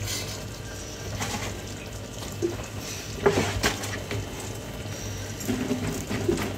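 Wooden spoon stirring a thick cream sauce in a pan, with a few soft scrapes and knocks of the spoon, over a low steady hum.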